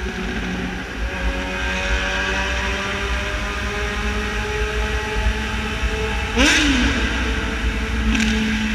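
A vehicle engine running steadily with a constant hum. A brief loud whoosh with a quick swoop in pitch comes about six and a half seconds in, and a shorter one near the end.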